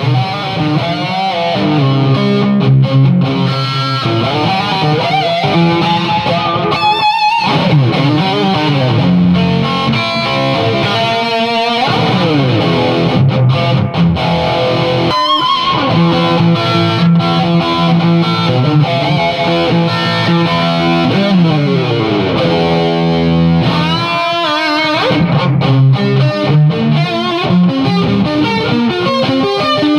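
High-gain distorted electric guitar played through a Crate Vintage 60 amp rebuilt as a Splawn/Soldano-style high-gain amp: sustained low chords and riffs with lead lines, held notes with wide vibrato, and a run of sliding notes about two thirds of the way through.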